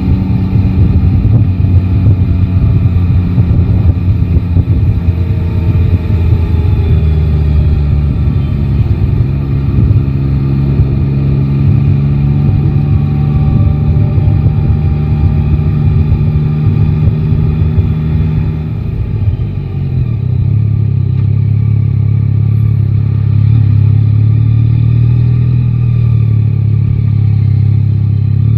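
Yamaha Tracer 9 GT's inline three-cylinder engine running on the move, its pitch rising and falling with throttle and gear changes. The sound drops briefly about two-thirds of the way through, then settles into steadier, lower-pitched running.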